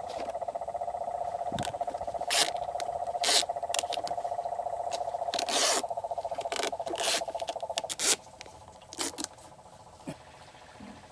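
A plastic flexible downspout elbow being handled, pushed onto a leaf blower's outlet tube and taped, with a series of sharp plastic scrapes, crinkles and tape pulls. Behind them a steady, rapidly pulsing buzz carries on and stops about eight seconds in.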